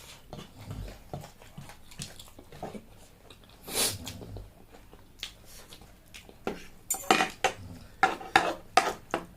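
Eating utensils clinking against bowls and dishes during a meal, in scattered clicks, with a quick run of louder clinks near the end.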